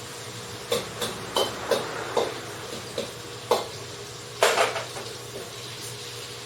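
Kitchen utensils knocking and clinking against a bowl or dish: about eight sharp, irregular knocks in the first five seconds, the loudest pair near the middle, over a steady low hum.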